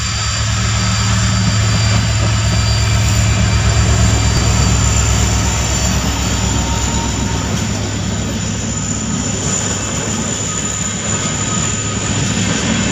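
Diesel locomotive hauling a passenger train past close by: a loud, steady low engine drone over the noise of the coaches running on the rails.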